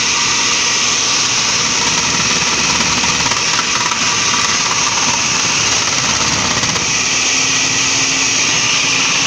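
Philco food processor's motor running steadily at speed with its grating disc, shredding a carrot pushed down the feed tube.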